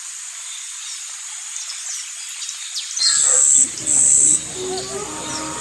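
High chirping animal calls outdoors, then two loud, high-pitched trills of about half a second each, around three and four seconds in, followed by more chirps and short calls.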